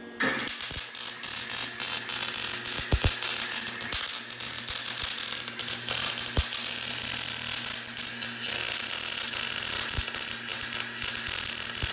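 Wire-feed welder crackling steadily as a steel motor mount bracket is welded onto the car's frame, starting just after the opening, with a few sharp pops along the way.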